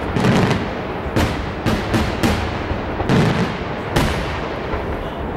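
Daytime aerial fireworks shells bursting overhead: about eight sharp bangs in quick, irregular succession over a steady din of further reports.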